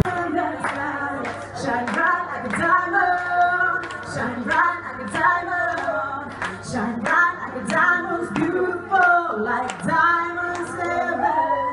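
A woman singing a song into a microphone over a dance backing track, with a steady clapping beat.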